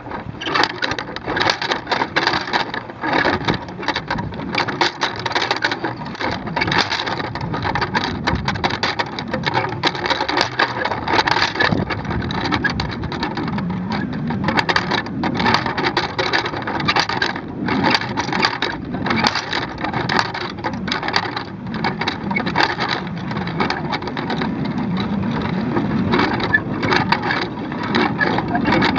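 Wind buffeting a small camera hung from a kite line, with a rapid irregular rattle and flutter from the camera rig.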